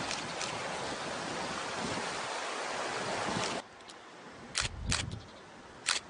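Sea waves washing onto a beach, a steady hiss that cuts off sharply a little past halfway. A quieter stretch follows, with three sharp clicks near the end.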